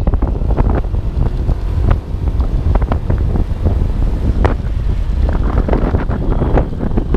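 Wind buffeting a camera microphone on a moving motorcycle: a heavy, uneven low rumble with gusty flutters, over the bike's running noise.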